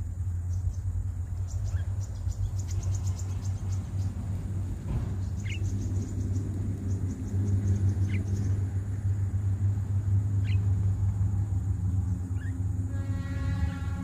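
Steady low rumble of wind buffeting the microphone, with short chirping bird calls every two seconds or so and faint rapid high ticks. A sustained tone with several pitches comes in near the end.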